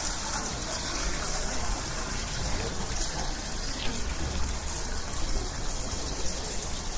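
Fountain water gushing and splashing steadily.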